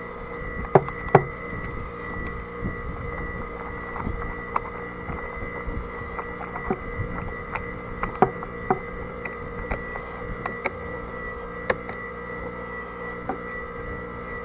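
A steady hum with fixed tones, broken by scattered sharp clicks and knocks, the loudest two about a second in.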